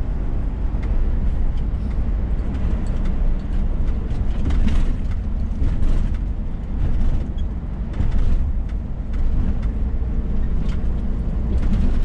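Steady low drone of a Scania S500 truck's engine and tyres, heard inside the cab while driving at road speed, with a few short swells of hiss partway through.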